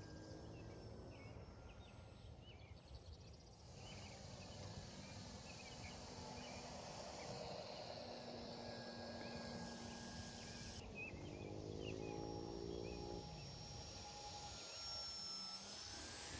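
Faint whine of a radio-controlled model airplane's motor in flight, its pitch sliding slowly up and down as the plane flies around.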